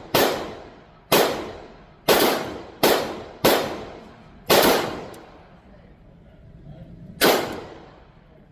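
Seven pistol shots from a 2011-style double-stack pistol, fired at an uneven pace of roughly one a second with a longer pause before the last. Each shot is followed by a long ringing echo.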